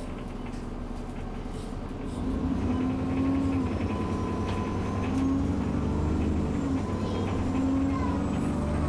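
Alexander Dennis Enviro 400 double-decker bus's diesel engine heard from inside the passenger cabin, pulling under load and growing louder about two seconds in. Its pitch steps up and down as it works through the ZF Ecomat automatic's gears. A faint high whistle rises slowly in pitch behind it.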